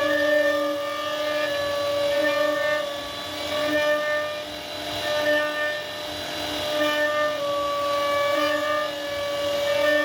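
CNC router spindle running at high speed while the bit carves wood: a steady high whine over a rough cutting noise, wavering in strength as the bit moves through the cut.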